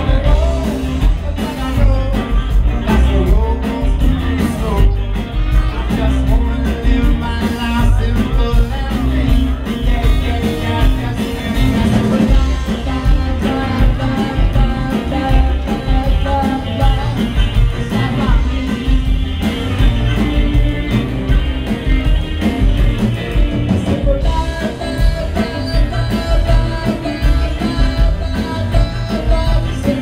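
Live reggae band playing: harmonica lead over electric and acoustic guitars, upright bass and drums, with a pulsing beat.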